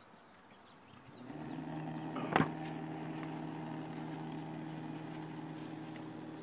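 Sump pump in a rain barrel switched on, its electric motor starting about a second in and then running with a steady hum. A single sharp knock sounds over it shortly after.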